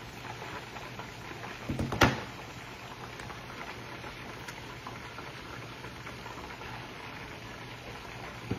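Chicken pieces deep-frying in a large aluminium pan of hot oil, a steady crackling sizzle. A sharp knock about two seconds in, after a few low bumps, stands out above it.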